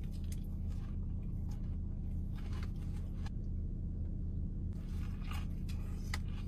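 Faint crunching and chewing of a crispy fried chicken sandwich being bitten into, a few scattered crackles, over a steady low hum.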